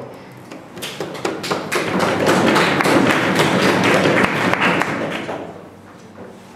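A burst of audience applause: many overlapping claps or knocks that swell about a second in and die away after about five seconds.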